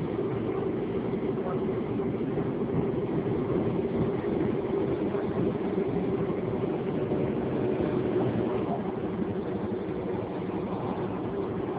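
Subway train's running noise heard from inside the passenger car: a steady rumble with a constant hum.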